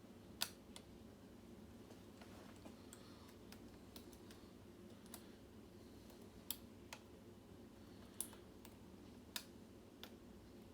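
Lock pick and tension wrench working the pins of a pin-tumbler lock with a Kwikset keyway: sparse, separate small clicks, about ten of them, the loudest about half a second in.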